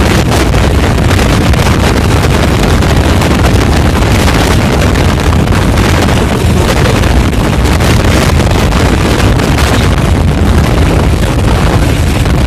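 Loud, steady rush of wind and road noise from a vehicle travelling at speed, with wind buffeting the microphone over a low rumble of tyres and engine.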